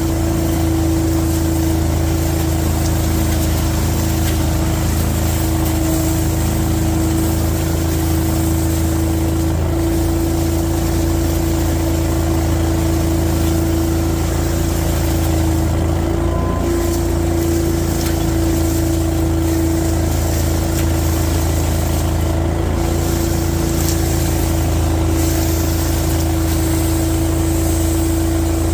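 Giant industrial debris vacuum running steadily under power, an even engine drone with a constant hum over it, as it picks up corn debris.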